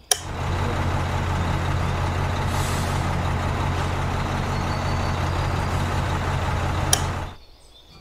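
A rocker switch clicks on, then the small electric motor of a miniature concrete mixer runs steadily with a low hum, turning its drum of wet cement. After another click about seven seconds in, it cuts off.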